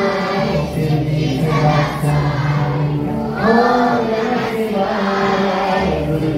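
A group of children singing a devotional prayer together in unison, with long held notes.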